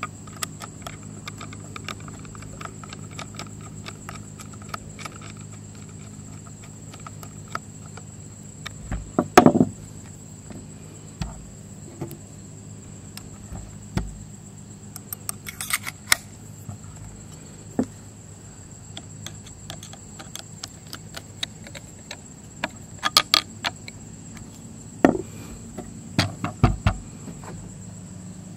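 Scattered light clicks and a few sharper knocks as a screwdriver drives a screw and a wooden-stocked rifle is handled, the loudest knocks about nine seconds in and again near the end. A steady high thin whine and a low hum run underneath.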